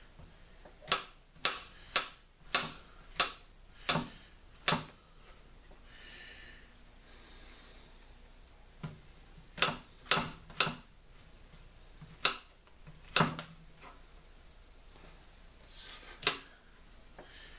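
Kitchen knife slicing button mushrooms on a wooden cutting board: a run of sharp knocks of the blade on the board, about two a second, over the first five seconds, then a short burst of four and a few single knocks later on.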